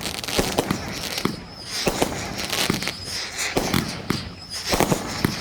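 Fireworks going off: a rapid, irregular run of bangs and crackling, with a couple of brief lulls.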